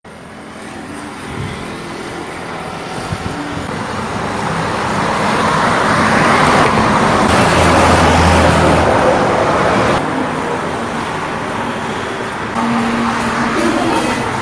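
Road traffic with a motor vehicle passing close by: its noise swells to loudest around the middle, with a low engine note at the peak, then fades. Near the end a steady low hum takes over.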